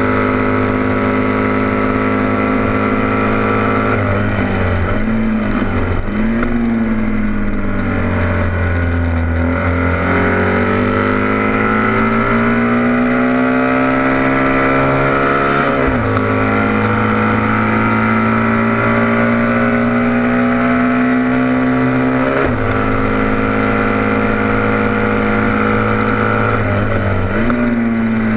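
Vintage racing motorcycle engine heard close up from the bike itself, running hard at racing speed. The engine note dips briefly a couple of times, falls low about nine seconds in as the bike slows for a corner, then climbs steadily back up, with short breaks in the note about sixteen and twenty-two seconds in and again near the end.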